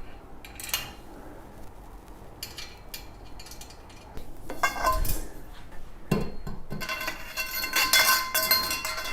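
Metal frame parts of a compost tumbler (rods, cross brace, bolts) clinking and clattering as they are handled and fitted together. A few light clicks at first, then from about halfway a busier run of knocks with ringing metallic tones, loudest near the end.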